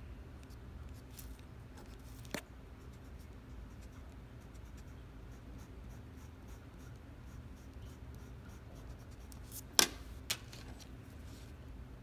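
Coloured pencil scratching faintly on art paper in quick, repeated strokes as it colours in. Sharp clicks come about two seconds in and twice near the end.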